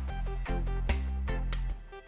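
Background music with plucked notes over a steady bass.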